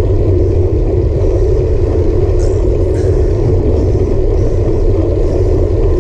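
Steady wind rumble buffeting a handlebar-mounted action camera's microphone, mixed with road-bike tyre noise on asphalt, while riding at a steady pace of about 12–14 mph.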